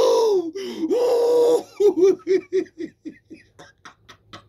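A man's voice lets out two long, drawn-out cries, then breaks into laughter: a quick run of about five 'ha' pulses a second that fades into breathy wheezes and clicks.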